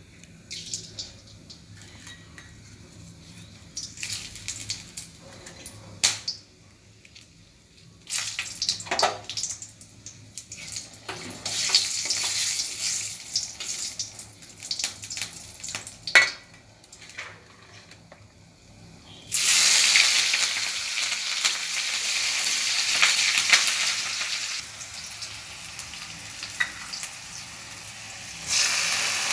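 Spices and dried red chillies frying in hot mustard oil in a kadai, with a spatula clicking and scraping against the pan. The sizzle comes in short bursts at first, then turns loud and steady about two-thirds of the way through.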